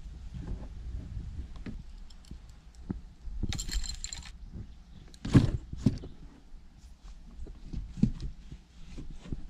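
Scattered knocks, clicks and light metallic rattles of fishing gear being handled in a kayak, over a low rumble of wind on the microphone. A short rattle comes about three and a half seconds in, and the loudest sound is a sharp knock a little after five seconds.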